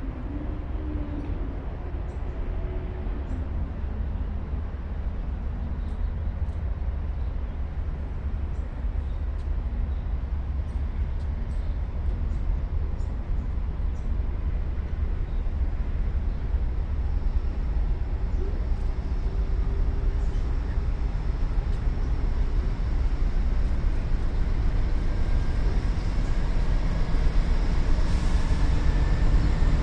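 Pacific National NR-class diesel-electric locomotive hauling a freight train at slow speed. Its low engine rumble grows steadily louder as it approaches, and a faint high whine rises in pitch near the end.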